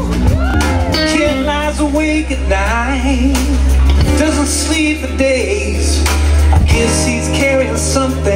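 Live band playing a song: a singer over electric guitar and a strong bass line.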